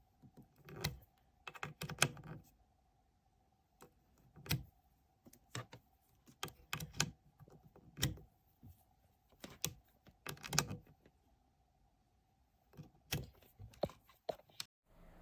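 Irregular sharp clicks and light knocks, about a dozen, some in quick pairs, over a faint steady hum.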